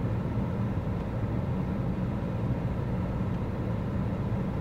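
Steady low rumble of an idling vehicle engine, running evenly.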